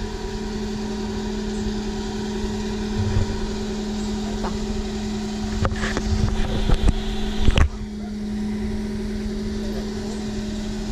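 A vehicle's engine running with a steady hum, with a cluster of knocks and rattles from about six to seven and a half seconds in.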